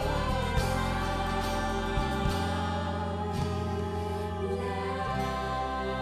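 A TV drama's closing theme song: music with long held chords over a steady bass line.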